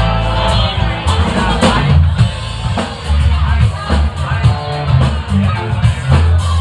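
Live band playing amplified music: electric guitar, bass guitar and a drum kit with steady cymbal strikes over a heavy bass line.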